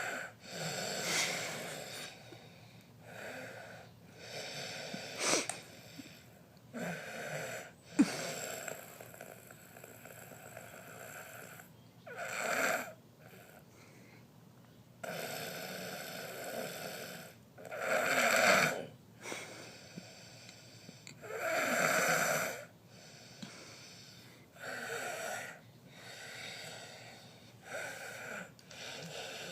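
Snoring: slow, uneven breaths a few seconds apart, some much louder than others. A short, sharp sound about eight seconds in is the loudest moment.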